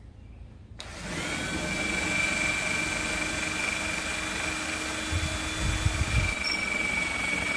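Cordless drill starting about a second in and running at a steady whine as it bores down into a wooden batten, with some low rumbling a little past the middle.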